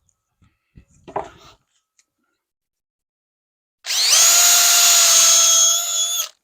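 Power drill re-drilling a screw hole in wood framing. It runs for about two and a half seconds, quickly spinning up to a steady whine. A short knock and rustle comes about a second in.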